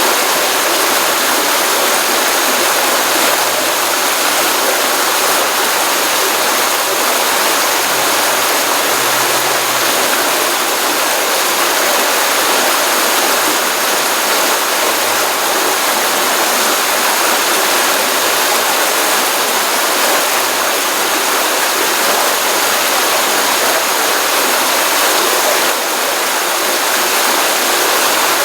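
Stream water running steadily over a pond outlet, a dense even rush of water.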